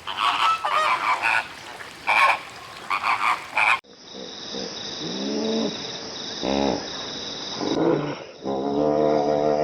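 Animal calls: a quick run of short honking or croaking calls, then after a sudden cut, lower drawn-out calls that fall in pitch.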